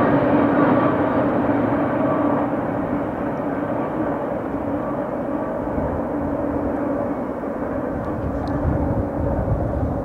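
Double-stack intermodal freight train's cars rolling away on the rails: a steady rumble of wheels with a faint hum, slowly fading as the end of the train recedes.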